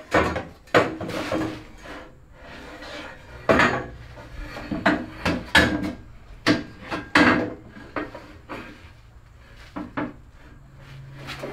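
Irregular clanks, knocks and scrapes of steel tubing being handled against a steel tube-frame chassis as a bent tube is test-fitted.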